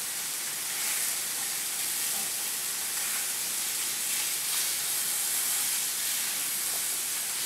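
Cod fillets sizzling steadily as they sear in a little hot oil in a frying pan.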